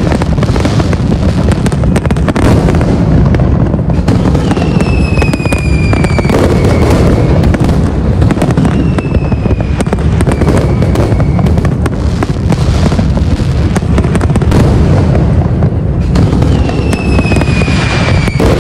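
Fireworks display: a dense, continuous barrage of bangs from shells and launches. A high whistle falling in pitch comes through three times.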